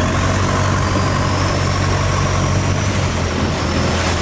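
Small boat's engine running steadily at constant speed, a low even hum with a thin high whine above it.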